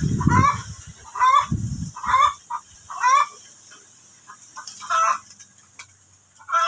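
A bird calling over and over, short wavering calls about once a second, growing sparser after about four seconds. A low rumble underlies the first two seconds.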